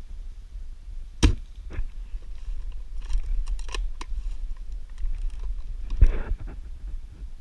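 Sharp clicks and knocks from an airsoft rifle carrying the microphone as it is handled: one loud crisp click about a second in, a few small ticks in the middle, and a rougher, rustling knock near the end, over a low rumble of wind and handling on the microphone.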